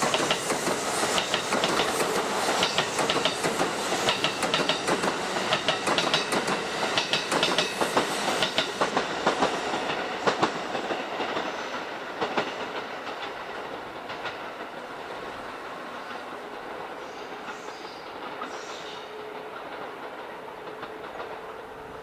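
Electric train moving along the station tracks, its wheels clattering rhythmically over rail joints, then fading away after about twelve seconds.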